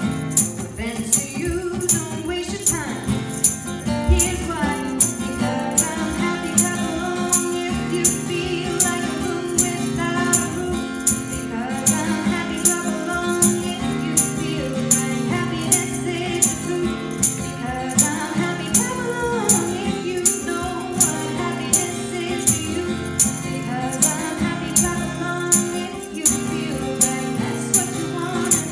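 A woman singing a pop song to a strummed acoustic guitar, with a handheld tambourine shaken and struck on a steady beat, about two strikes a second.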